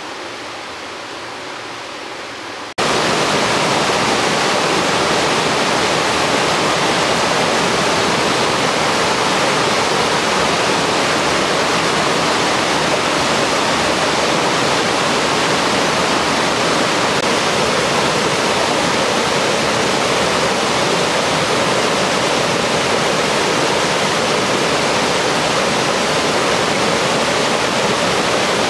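Greer Spring's spring branch rushing over rocks and fallen logs in a steady hiss. It is fainter at first, then after a cut about three seconds in it is loud and close at the rapids.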